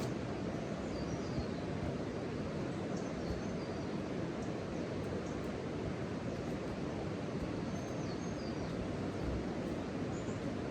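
A steady rushing outdoor noise, heaviest in the low range, with faint, high bird chirps scattered through it.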